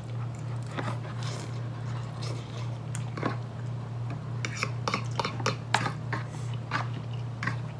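Two people eating ramen noodles with forks: scattered short clicks of forks against plastic bowls, with slurping and chewing, over a steady low hum.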